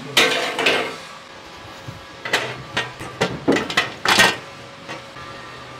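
Cooked rice tipped from a cloth into a large metal cooking pot makes a brief rustle near the start, then about six short knocks and clatters follow as utensils are handled around the pot.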